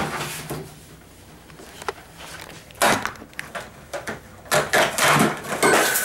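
Cardboard Coca-Cola 12-pack carton being handled, with rustling, scraping and knocks as cans are pulled out of the box. There is a sharp knock at the start and a run of louder rustling from about halfway.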